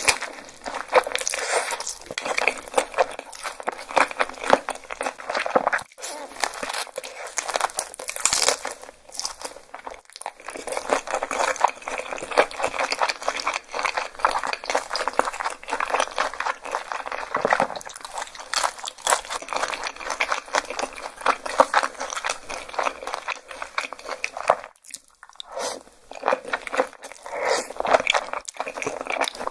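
Close-miked chewing and biting of crunchy food: a dense run of crisp crunches, broken by a few brief pauses.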